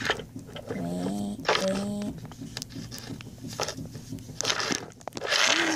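A child's voice making wordless sounds: two short held hummed notes about a second in, then a breathy hiss and a higher held note near the end, with a few light clicks.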